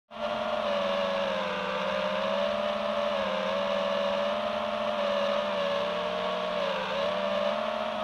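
FPV quadcopter drone's electric motors and propellers whining steadily, the pitch wavering slightly up and down.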